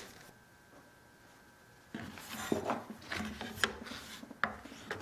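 Quiet for about two seconds, then light handling of a steel cabinet scraper and tools: soft rubbing with three sharp clicks and knocks.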